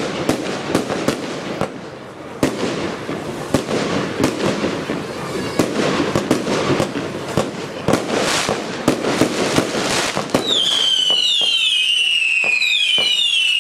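150-shot Category II firework compound cake firing. For about ten seconds come rapid sharp bangs and crackling bursts. Then loud whistling tails take over, several overlapping whistles each sliding slightly down in pitch, with a few cracks between them.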